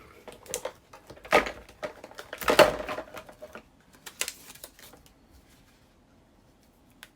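Ribbon and craft supplies being handled on a tabletop: a few short knocks, taps and rustles in the first half, the loudest about two and a half seconds in, then it goes quiet.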